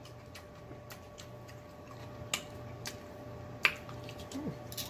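Quiet eating sounds: a metal fork working in an opened Vienna sausage tin and chewing, with a few sparse sharp clicks and a short hummed 'mm' near the end.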